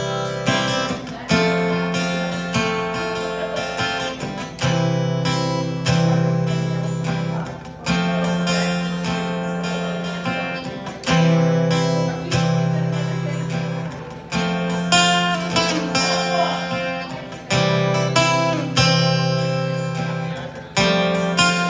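Acoustic guitar strumming chords, each chord struck firmly and left ringing, changing every couple of seconds. Instrumental playing with no singing.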